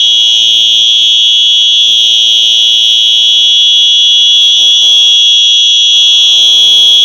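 Simplex fire alarm sounding a loud, continuous high-pitched tone, steady and unbroken.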